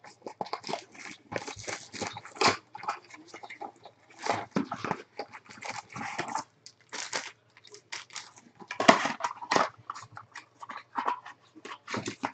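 Foil trading-card packs and plastic wrap crinkling and a cardboard box rustling in quick irregular bursts as packs are pulled out of a hobby box by hand.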